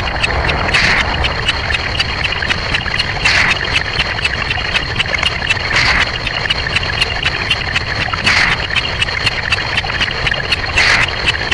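Sound effects sped up to a dense, rapid stream of clicks and ticks, with a brighter hissing swell about every two and a half seconds.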